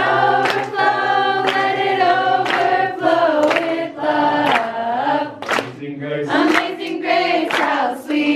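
A group of people singing a song together, clapping their hands along in time about twice a second.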